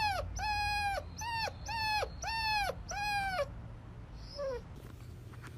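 Dog whining: a run of about six short, high whines, each falling in pitch at its end, then one faint lower whine near the end.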